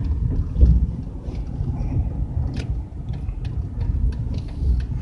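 Low, steady driving rumble inside the cabin of a 2001 Buick Century Custom under way: its 3100 V6 engine and tyre noise from the road, with a few faint clicks.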